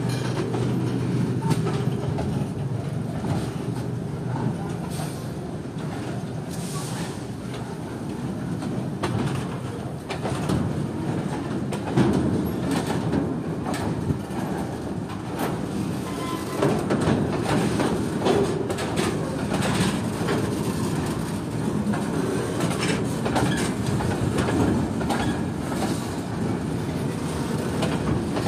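A container freight train's loaded flat wagons rolling past with a steady rumble, their wheels clicking irregularly over the rail joints.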